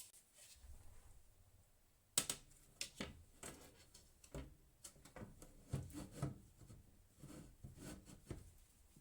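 Light clicks, taps and rubbing of hands handling computer parts. A sharp click about two seconds in is the loudest, followed by a run of small knocks.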